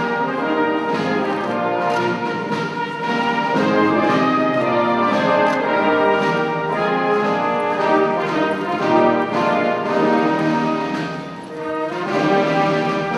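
Band music led by brass instruments, with sustained melodic notes and a short dip in loudness near the end.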